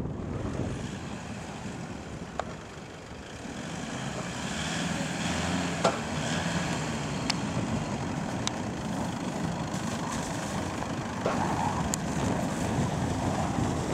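Toyota Hilux pickup's engine running as it drives slowly over snow, steady throughout, with a few sharp clicks; the loudest click comes about six seconds in.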